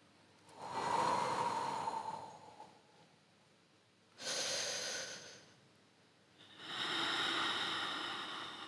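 Three slow, breathy swells of sound like long amplified breaths, each lasting one to two seconds, with faint held tones inside them and near quiet between.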